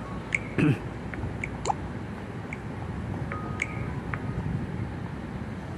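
Small water sounds from a swampy pool: scattered drips and plinks, a low thump soon after the start and a quick rising plop near the middle, over a steady low outdoor background noise.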